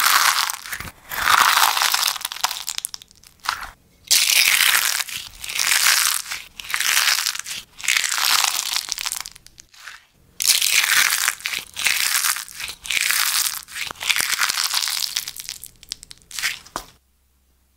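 Crispy-shelled slime bowls crushed in the fists, crackling and crunching as the dried crust breaks into flakes. The squeezes come again and again, about one every second or two, and stop about a second before the end.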